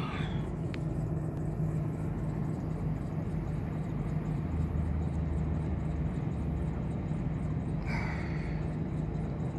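A vehicle engine idling with a steady low hum and rumble, heard from inside the cab, with a faint even hiss behind it. A brief soft swish comes near the end.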